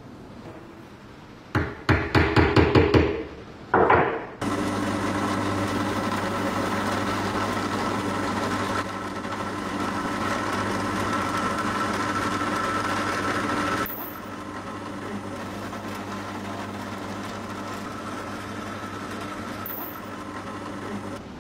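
A quick run of sharp knocks, then an electric drill running steadily as its bit bores a hole into the end of a wooden handle. The drill sound drops in level about two-thirds of the way through and keeps running more quietly.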